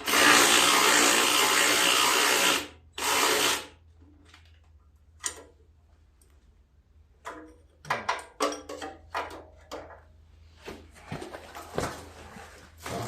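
A power tool run in two bursts, a long one of about two and a half seconds and a short one just after, on the bolts holding the starter-generator belt; then scattered light clicks and knocks of tools on metal.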